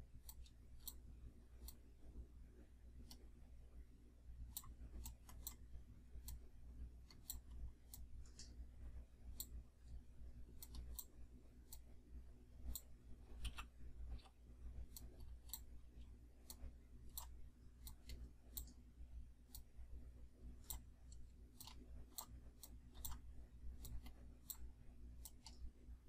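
Faint, irregular computer mouse clicks, up to a few a second, over a low steady hum.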